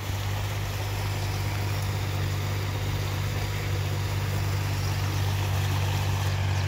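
Sonalika 4x4 20 hp mini tractor's engine running steadily as it pulls a rotavator through the soil between the millet rows: an even low hum with a steady hiss above it.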